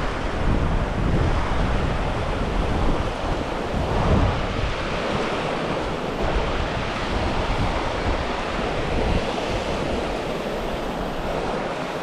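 Steady rush of a fast-flowing mountain river, with wind buffeting the microphone as a low rumble through the first few seconds that eases off after that.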